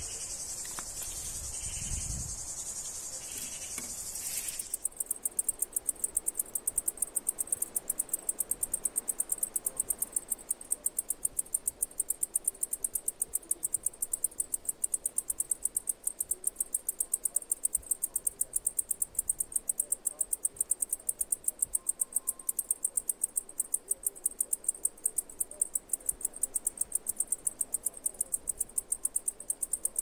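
Cicada song: a steady high buzz that changes about four and a half seconds in to a fast, even train of sharp, high ticking pulses.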